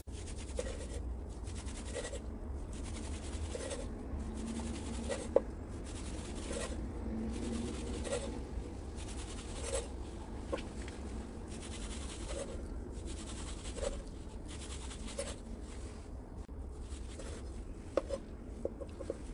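Kitchen knife slicing cooked pork neck on a wooden cutting board: a soft scrape and tap as each slice goes through to the board, repeated about once a second, with a sharper knock about five seconds in and another near the end.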